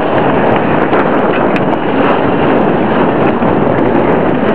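Strong wind buffeting the microphone aboard a small sailboat underway in rough, choppy water: a loud, steady rush with a few faint ticks.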